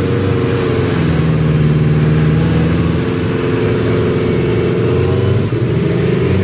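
Suzuki Jimny 4x4's engine running at steady, raised revs as the vehicle works its way through a mud hole.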